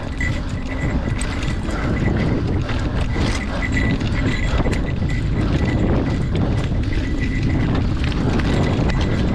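Mountain bike rolling down a dirt trail: steady tyre and air rumble from riding, with small scattered clicks and rattles from the bike.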